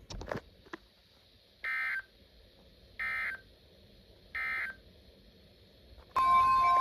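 Three short bursts of NOAA Weather Radio SAME data tones, the end-of-message code closing the alert, each a fraction of a second long and about a second and a half apart, after a couple of clicks at the start. Near the end a loud steady tone begins, with other notes over it.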